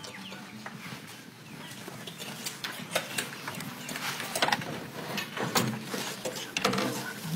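Scattered knocks and clatter of people moving about and handling instruments, with low voices murmuring near the end.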